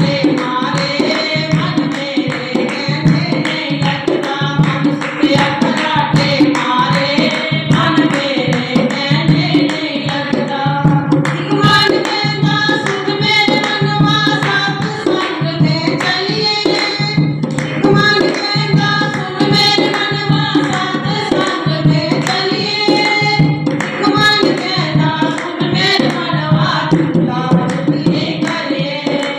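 A devotional bhajan sung over a steady hand-drum rhythm, with the melody carried by voice.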